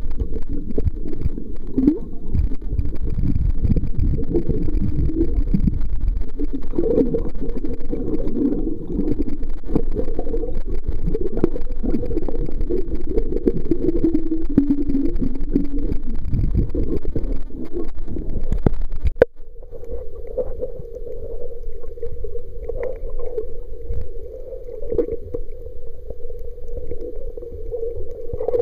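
Muffled underwater rumble and sloshing of water moving around a submerged camera, heard with almost nothing above a low pitch. About two-thirds of the way through it cuts abruptly to a quieter, steadier low hum.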